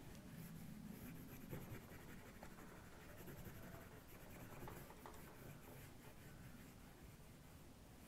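Faint scratching and rubbing of a pastel stick stroked back and forth across paper while colouring in.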